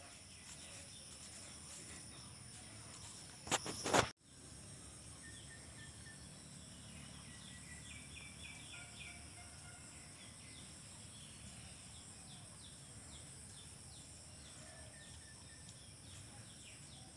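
Steady high-pitched chorus of insects in a rural garden, with birds chirping in quick repeated calls for several seconds in the middle. About four seconds in there is one short loud noise that cuts off abruptly.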